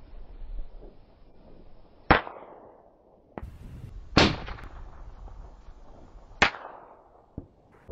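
Three rifle shots about two seconds apart, each followed by a fading echo, with fainter sharp cracks between them.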